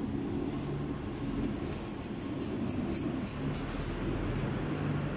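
Insect chirping: a run of short, very high-pitched pulses about four a second, starting about a second in and growing sparser near the end.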